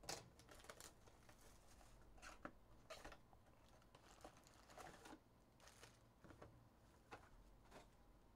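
Faint rustling and crinkling as a Select basketball card box is opened and its foil-wrapped packs are handled and set down, with a scatter of small clicks and taps.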